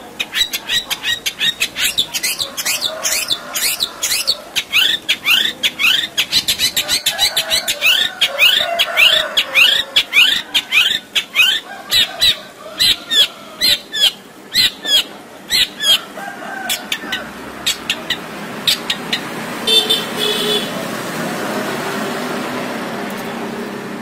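Long-tailed shrike (cendet) singing a fast run of sharp, down-slurred notes, several a second, for most of the first sixteen seconds. After that the song thins out and a steady noisy background takes over.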